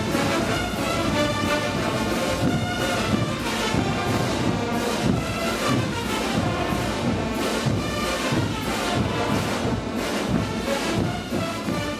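A massed brass band of trumpets, baritone horns and sousaphones with snare and bass drums playing a taquirari over a steady drum beat.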